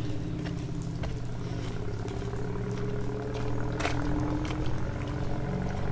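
An engine running steadily with a low, even hum, with a few sharp ticks over it.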